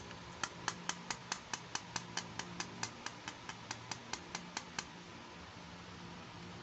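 A rapid, even run of about twenty sharp clicks, roughly five a second, that stops near five seconds in, over a faint steady hiss.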